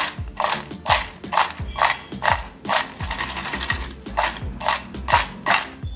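Dry, crisp fried banana chips rattling in a plastic bowl as it is tossed, with a sharp rattle about twice a second, to coat the chips in salt, chaat masala and chilli powder. Faint background music underneath.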